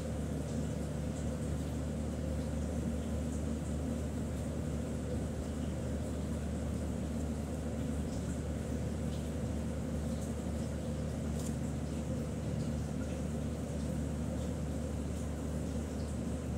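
Steady low mechanical hum with several held tones, with faint scratching of a pen writing on paper.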